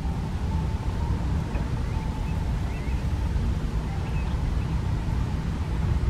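Steady low rumbling noise, with a few faint, short high chirps about one and a half seconds and four seconds in.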